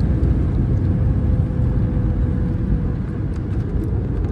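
Airbus A320 cabin noise while rolling on the ground after landing: a steady low rumble of the engines and wheels, with a faint steady hum running through it. A few faint clicks come near the end.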